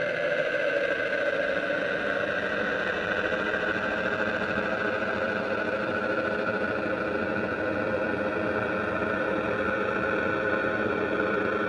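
Electronic music: a dense, steady synthesized drone of many held tones, a few of them drifting slowly in pitch.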